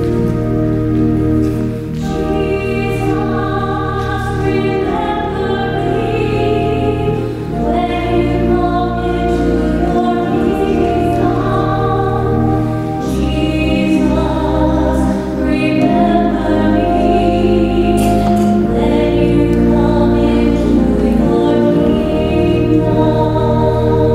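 Choir singing slow music over sustained low instrumental notes.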